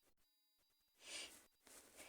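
Near silence, with one faint breath from a person with a heavy cold about a second in, shortly after a sneeze.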